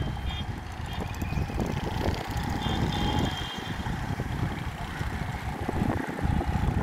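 Street traffic noise: vehicle engines running with a continuous low rumble, and a brief high tone about three seconds in.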